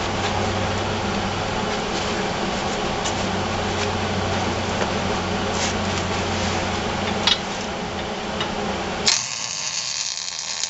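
Wire-feed welder striking an arc and laying a short tack weld on steel: a harsh crackling hiss starts suddenly about nine seconds in and lasts under two seconds. Before it there is a steady hum, with a few clicks as the gun is brought into place.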